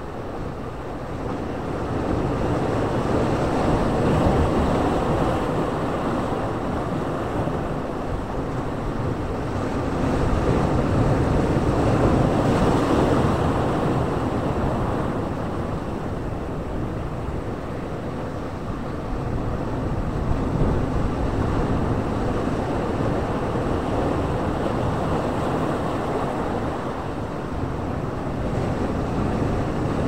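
Sea surf breaking and foaming among shoreline boulders: a continuous wash of water that swells louder each time a wave comes in, about every eight seconds.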